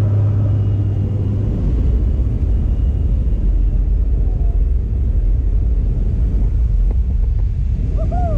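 Loud, steady drone of a jump plane's engine and propeller with rushing air, heard inside the cabin. The deep engine note drops lower about a second and a half in and then holds steady.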